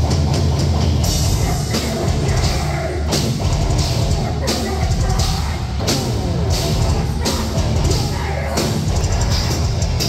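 A heavy hardcore band playing live and loud: distorted electric guitars and bass over a pounding drum kit with repeated cymbal crashes.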